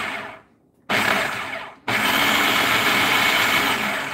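Electric food processor pulsed three times, its motor whirring and the blade chopping tomatoes and peppers. The first burst winds down in the first half second, a second runs about a second, and a longer third run starts near two seconds in and winds down at the end.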